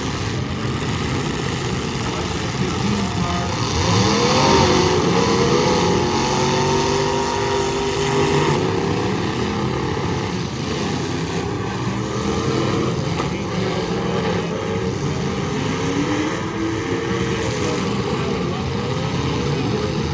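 Big demolition-derby car engines running and revving together over a steady din, their pitch repeatedly rising and falling as the drivers gun them.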